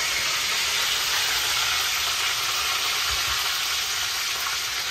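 Fresh curry leaves sizzling in hot oil in a kadai, with mustard seeds and cumin already in: a tadka being tempered. A steady, loud hiss that eases slightly toward the end.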